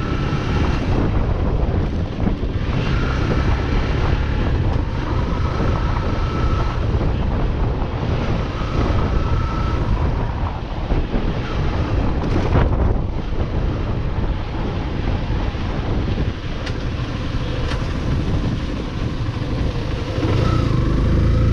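Wind buffeting the microphone on a moving motorcycle, over the running engine of a 149cc single-cylinder Yamaha Fazer FI 150.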